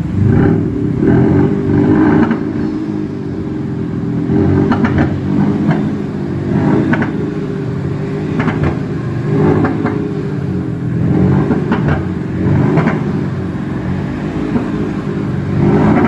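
BMW G30 5 Series fitted with a Maxhaust active sound system, its under-car sound unit playing a synthetic exhaust note over the engine. The engine is blipped in a series of short revs, about one every one to two seconds, over a steady low rumble at idle.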